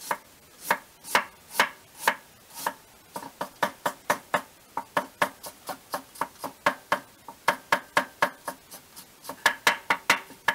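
Kitchen knife chopping fresh ginger on a cutting board: sharp knocks of the blade against the board, slower slicing strokes about two a second at first, then quicker mincing strokes about three a second from about three seconds in.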